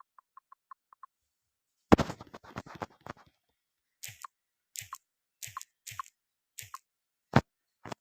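Tapping and clicking from handling a phone while typing into it: a few faint quick regular ticks at first, a loud rattling cluster of clicks about two seconds in, then single taps roughly every half second, and one sharp click near the end.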